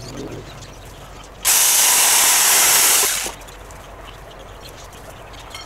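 Compressed air hissing in one steady burst of about a second and a half from a pneumatic air line, starting about a second and a half in and cutting off sharply.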